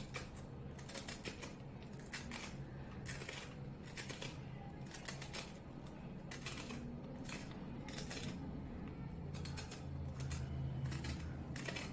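Kitchen knife scraping the spiny ridged skin off a bitter gourd over a wooden cutting board: short, sharp scrapes about twice a second.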